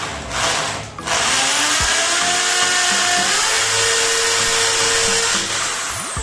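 Cordless drill boring a hole into a wall for a wall plug. A short burst, then the drill runs steadily under load for about five seconds and winds down near the end.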